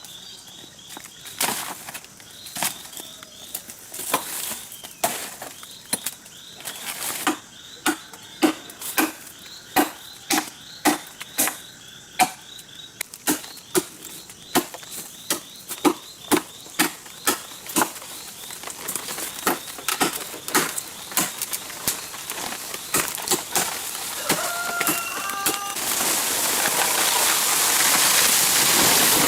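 Rice being harvested by hand: a long run of short rustling, chopping strokes through the stalks, about two a second in the middle stretch. A steady hiss swells up over the last few seconds.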